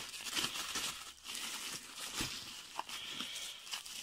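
Plastic bubble wrap crinkling and rustling as it is pulled open by hand, in an irregular run of small crackles.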